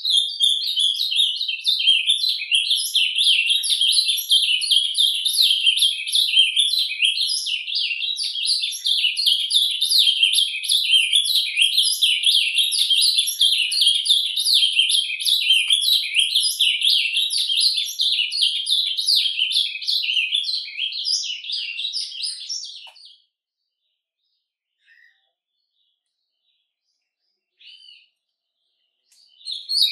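Ultramarine grosbeak (azulão) singing its surdina, the warbled subsong: a fast, unbroken stream of high twittering notes that stops about 23 seconds in, followed by a couple of short notes near the end.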